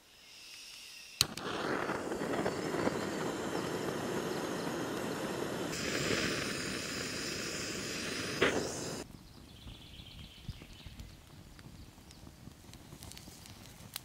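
Campfire burning and crackling, loud and dense for several seconds after a sharp snap about a second in, then cutting off abruptly to a much quieter stretch with a few faint pops.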